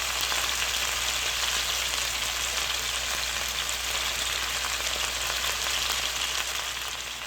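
Seasoned chicken pieces sizzling steadily in hot olive oil in a frying pan over medium heat.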